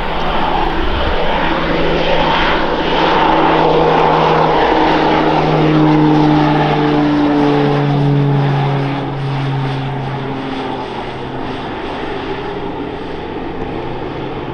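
Twin Pratt & Whitney turboprop engines of a PZL-Mielec M28 Skytruck running at power as it flies past low, the propeller drone dropping in pitch partway through as the aircraft goes by, then fading somewhat as it climbs away.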